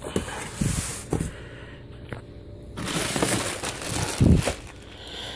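Cardboard box and packaging being handled and pulled open: scraping and rustling with a few sharp knocks, busiest past the halfway point.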